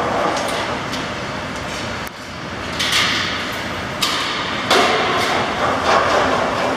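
A wheeled carcass cart rolling and rattling over a slatted concrete barn floor, with a few sharp metallic knocks about three, four and five seconds in.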